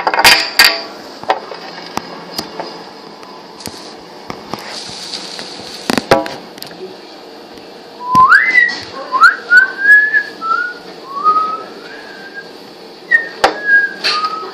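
A person whistling a short tune: a run of sliding, rising and falling notes in the second half. A few sharp clicks near the start.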